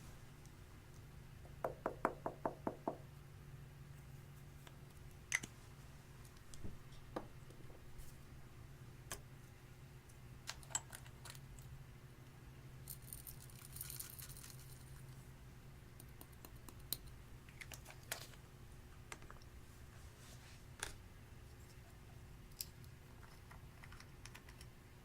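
Clear slime being handled and mixed, giving faint sticky clicks and pops: a quick run of about eight near the start, then scattered single clicks, with a short hissy crackle around the middle.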